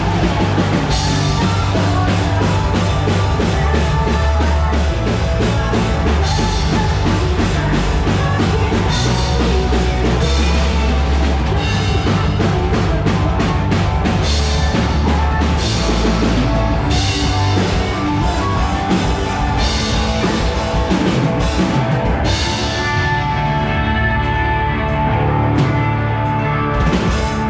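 Live rock band soundchecking through a stage PA: drum kit, bass guitar, electric guitar and keyboard playing together with a heavy low end. The cymbals thin out near the end, leaving the guitars and keys ringing.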